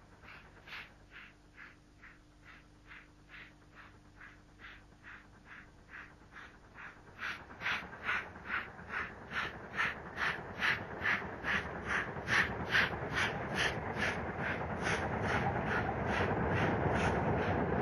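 Steam locomotive working hard, its exhaust beating in a regular chuff about two to three times a second and growing louder as it approaches, with the rumble of the train building under the beats toward the end.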